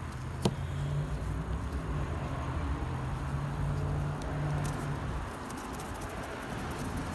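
A vehicle engine running with a steady low hum that fades away about five seconds in. A single sharp click comes about half a second in.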